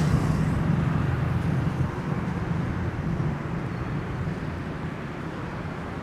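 City street traffic: a vehicle's engine is loudest at the start, passing close by, then fades away, leaving a steady hum of road traffic.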